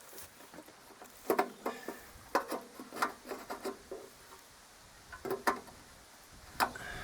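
Irregular light clicks and knocks from things being handled, a dozen or so scattered taps with a quiet hiss between them.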